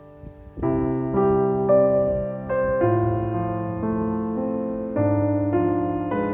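Slow, soft piano music. After a brief lull, chords come in about half a second in, with a new note or chord struck every half second to a second.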